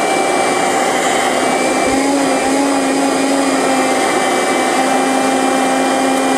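12-volt car vacuum cleaner motor, rigged as a blower blowing air out through a cardboard tube, running at full speed with a steady whine and rush of air; a lower hum joins about two seconds in.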